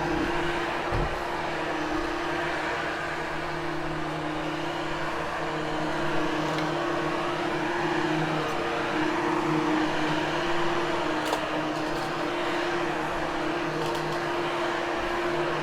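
Hoover HushTone upright vacuum cleaner running steadily over carpet: a constant motor hum and airflow noise, with a small knock about a second in.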